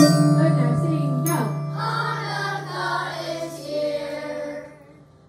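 The last notes of a children's Orff mallet ensemble of xylophones, metallophones and glockenspiels: a low bar note rings on and fades out near the end, with one more mallet stroke about a second in. Children's voices join faintly from about two seconds in.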